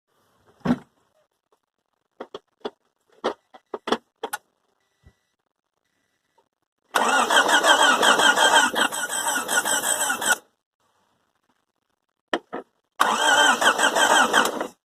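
A Honda D16Z6 1.6-litre four-cylinder is cranked twice on its starter, for about three and a half seconds and then under two seconds, with a fast even rhythm. It does not fire or catch either time, and each attempt stops abruptly. A handful of sharp clicks come before each attempt: a no-start after an engine replacement.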